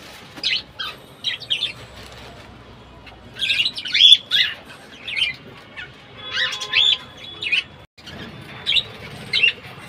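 Flock of budgerigars, with cockatiels among them, chirping and chattering in short scattered bursts of high chirps, the loudest clusters about four seconds and about seven seconds in.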